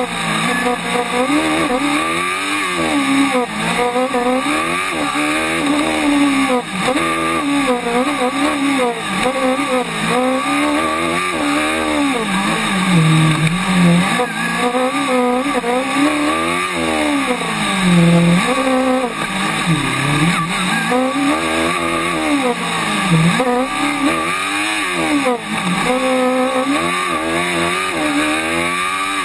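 Formula Student race car's engine heard from on board, revving up and dropping back again and again as the car accelerates out of and brakes into the corners of a tight autocross course.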